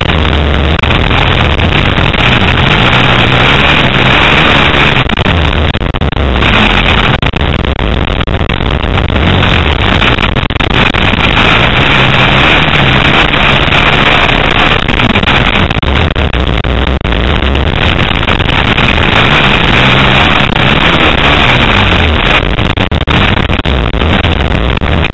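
Motocross bike engine run hard around a dirt track, its pitch rising and falling again and again as the throttle is opened and closed, heard loud and close from a camera on the bike.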